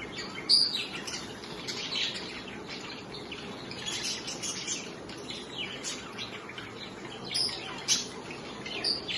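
Pet budgies (budgerigars) chattering and chirping continuously, with a few louder sharp calls about half a second in and again near the end.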